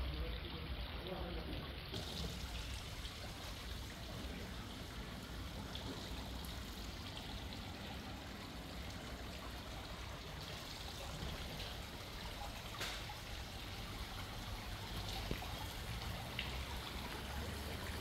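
Steady outdoor ambience of even, water-like noise with a low rumble underneath and a few faint clicks.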